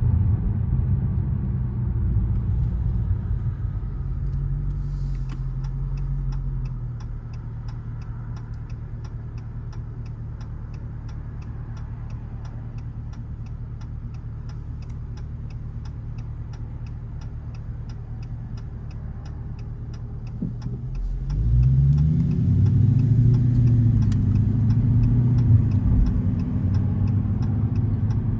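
Car slowing to a stop, its engine settling to a quieter idle for a long stretch while a turn signal ticks steadily about three times a second. About 21 s in, the engine note rises as the car pulls away and accelerates, getting louder.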